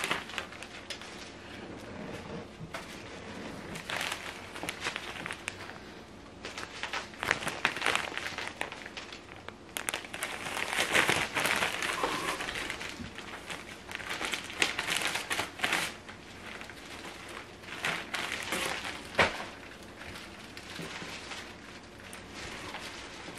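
Plastic packaging bag crinkling and rustling while items are handled and lifted out of a cardboard shipping box. It comes in irregular bursts, loudest around the middle.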